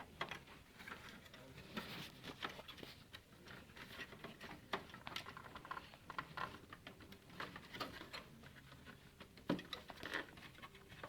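Scattered light clicks, taps and rattles of plastic and metal parts inside a desktop computer case being handled as a component is worked loose.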